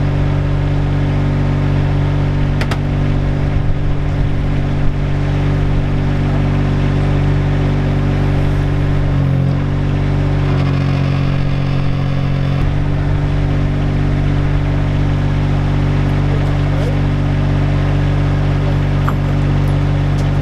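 An engine running steadily, its note shifting briefly about nine seconds in and settling again about three seconds later.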